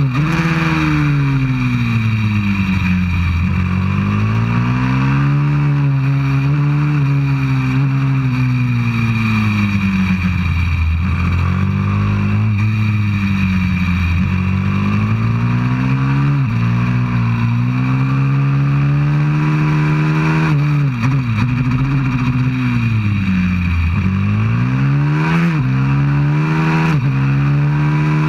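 A 190cc pit bike's four-stroke single-cylinder engine heard from onboard, loud and close. Its pitch climbs under throttle and falls away again and again as the bike accelerates, shifts and slows for corners.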